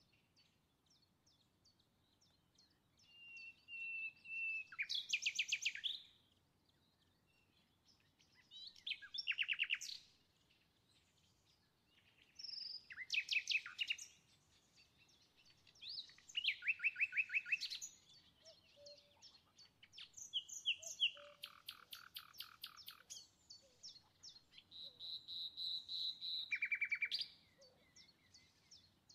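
A songbird singing in short phrases of rapid trills and clear whistled notes, one phrase about every four seconds.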